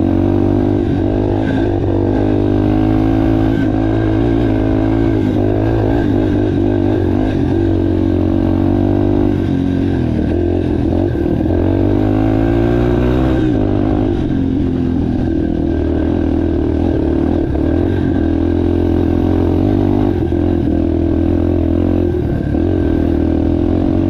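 Yamaha TTR230 trail bike's single-cylinder four-stroke engine running under load on a trail climb. The engine pitch climbs and drops again several times as the throttle is worked and gears are changed.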